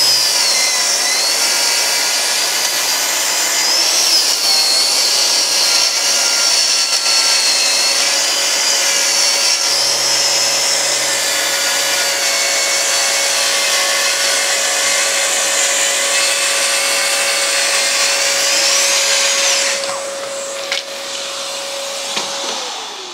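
Festool cordless track saw ripping a door edge along its guide rail, with a Festool CTM 26 E dust extractor running with it, auto-started over Bluetooth from the saw. The cutting noise drops off about 20 s in, and a little later the steady motor tone winds down and fades.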